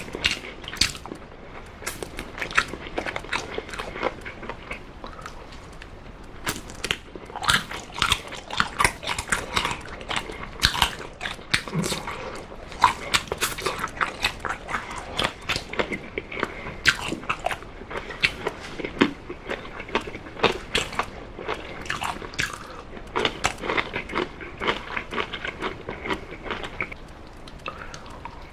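A person biting and chewing baked chicken drumstick meat close to the microphone and gnawing it off the bone, a dense run of short clicks throughout.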